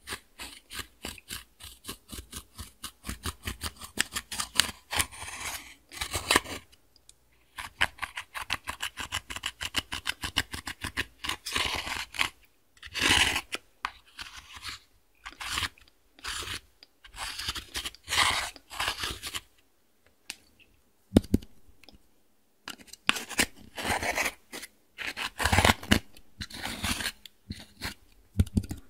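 A pointed plastic tool scraping and crushing pressed eyeshadow in its plastic palette pan: rapid scratchy strokes in quick runs, broken by short pauses.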